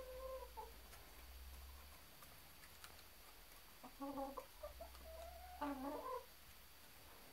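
Domestic hens calling faintly. A long drawn-out call trails off right at the start, then two short clucking calls come about four and six seconds in, the second rising in pitch at its start.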